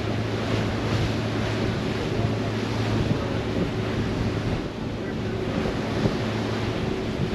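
Staten Island Ferry under way: wind buffeting the microphone and water noise over the steady low drone of the ship's engines.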